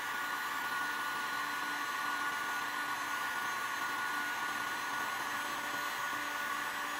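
Bosch Professional GHG 23-66 heat gun running at full airflow and full power, drawing about 2300 watts: a steady blowing rush with a thin steady whine.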